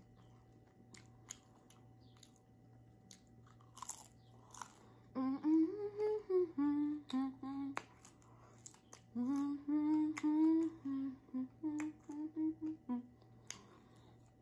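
A woman chewing a crisp tostada, with faint clicks and a couple of crunches, then humming a short tune in two phrases of held notes, starting about five seconds in and again about nine seconds in.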